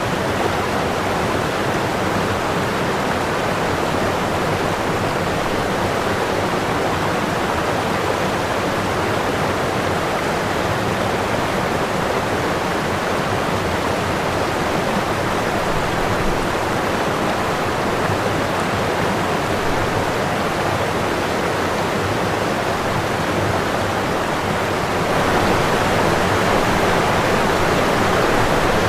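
Running water rushing steadily, growing a little louder and brighter near the end.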